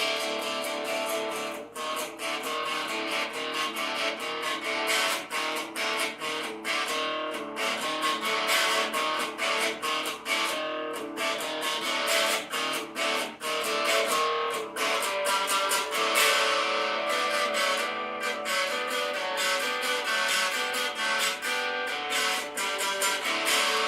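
Music: a strummed guitar playing a steady rhythm, with no vocals.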